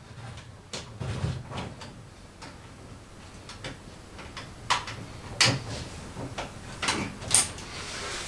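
Handling noises: rustling with a few sharp clicks and knocks, mostly in the second half, as cables and objects are moved about beside a cabinet.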